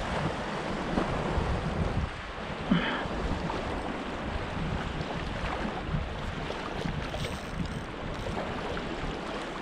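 Small ocean waves washing around shoreline rocks, with wind buffeting the microphone; one brief sharper sound stands out about three seconds in.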